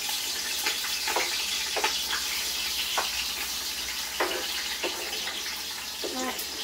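Steady sizzling hiss from a pan on the stove, with about half a dozen sharp clicks of a knife tapping and scraping chopped tomatoes and peppers off a wooden cutting board.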